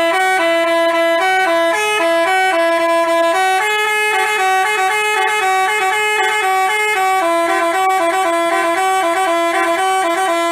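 Basuri telolet bus horn playing a tune: a continuous chain of stepping horn notes in two voices, stopping abruptly at the end.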